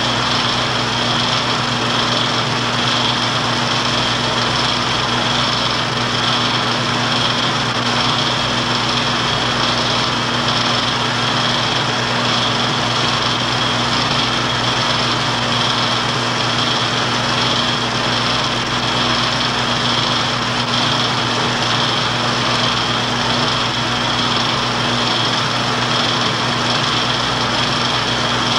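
Film projector running: a steady mechanical whir with a constant hum and a high whine, unchanging throughout.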